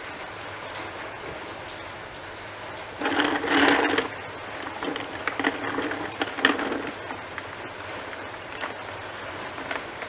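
A cloth rubbing and wiping against the plastic tank of a wet/dry vacuum, in scratchy spells that are loudest about three to four seconds in, with a few light knocks of the plastic.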